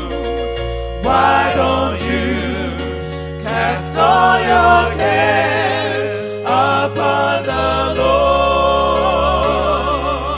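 Gospel song: singing voices with strong vibrato over sustained low bass notes.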